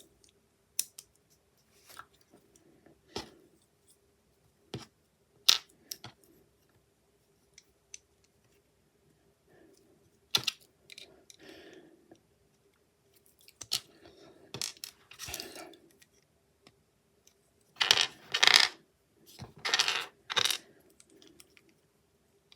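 Plastic LEGO bricks clicking and clattering as they are handled and pressed together: scattered single clicks, with louder bursts of clatter near the end. A faint steady hum runs underneath.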